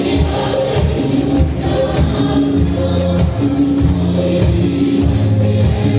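Live band playing instrumental worship music: keyboards holding long notes over an electric bass line, with electronic percussion pads struck with sticks.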